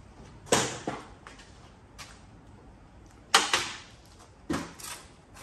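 Small pieces of scrap metal tossed into sorting bins, landing with sharp clanks that ring briefly: four clatters, one of them doubled, and a light tick in between.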